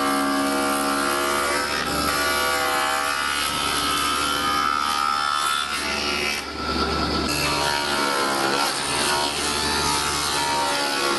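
Spindle moulder running, its spinning cutter block shaping solid wood fed past it against a template: a steady machine whine under the rasp of the cutter in the wood, the pitch wavering about two-thirds of the way through.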